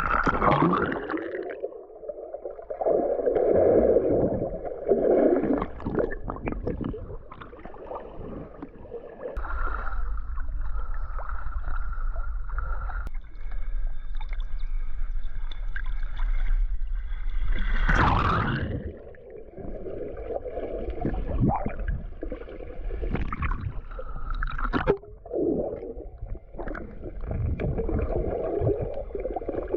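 Lake water sloshing and gurgling around a swimmer wading in the shallows, irregular and uneven with a few sharp splashes.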